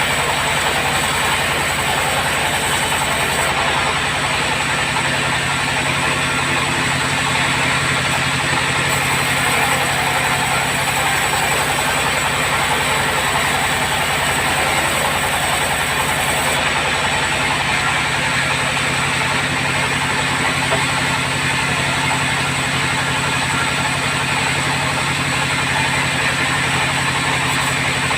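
Sawmill bandsaw running steadily, a constant machine hum under a dense hiss.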